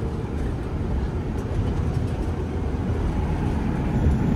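Tata Prima 5530.S heavy tipper truck cruising at high speed, heard from inside the cab: a steady low rumble of engine and road noise.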